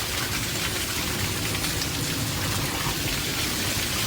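Steady rushing of flowing stream water, an even hiss with no break.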